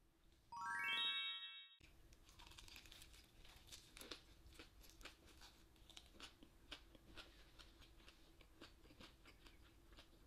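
A short, bright chime-like sound effect that rises at its start and cuts off abruptly after about a second. It is followed by close-miked chewing of a lettuce wrap: many small crunches and wet mouth clicks.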